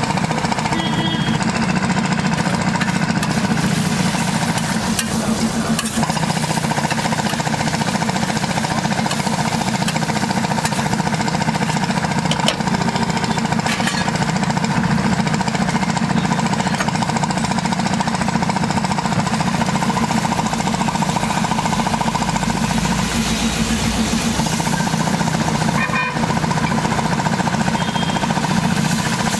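Eggs and chopped green onion frying in oil on a large flat iron griddle, sizzling steadily, with a wooden spatula stirring the mix near the end. Under it runs a loud, steady low mechanical rumble.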